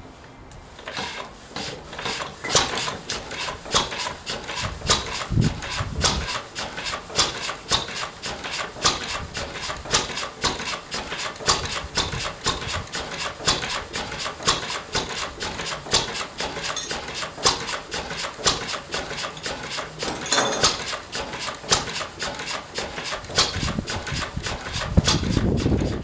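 Vintage single-cylinder Lister stationary engine on a cold start, catching about a second in and then running with an even, rapid beat of sharp knocks, several a second.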